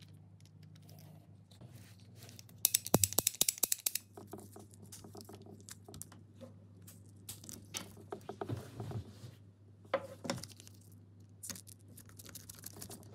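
Small screwdriver work on an antique electric drill's switch and brush-holder parts: a quick run of sharp metallic clicks about three seconds in, then scattered clicks, taps and scrapes as small screws are turned and parts fitted.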